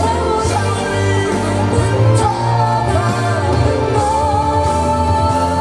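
Korean pop ballad playing through ScanSonic HD MB-2.5 floorstanding loudspeakers: a steady bass line under a long, sustained melody line that slides between notes.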